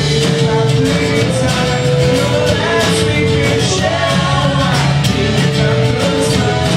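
Live rock band playing a song, with guitars and a sung vocal line holding long notes.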